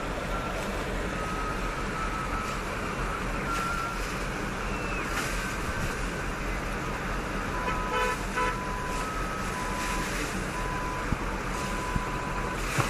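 Steady rush of traffic and floodwater, with a string of short car-horn beeps throughout and a fuller horn blast about eight seconds in.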